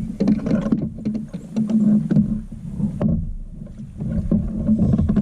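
Irregular knocks, taps and rustling on a fishing kayak as a freshly caught bass is landed and handled, over a steady low rumble of water and wind on the boat.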